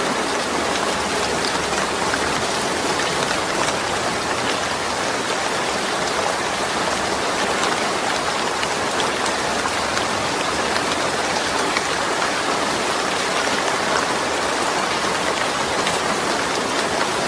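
Steady rain without thunder, drops pattering on a surface with fine scattered ticks.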